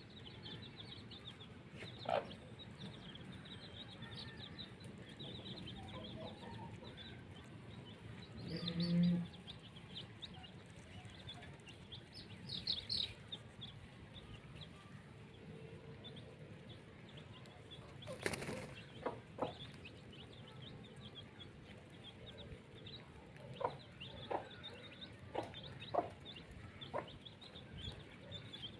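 Chickens clucking now and then, with small birds chirping throughout. There is a louder low call about nine seconds in and a single sharp sound around eighteen seconds.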